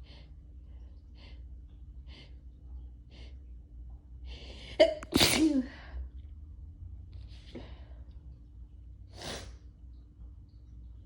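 A person sneezing once, hard: a few faint short breaths, a building intake, then one loud sneeze about five seconds in, followed by two breaths.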